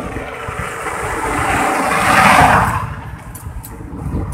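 A motor vehicle passes close by on the road. Its tyre and engine noise swells for about two seconds, peaks, then quickly falls away, over a low, uneven rumble.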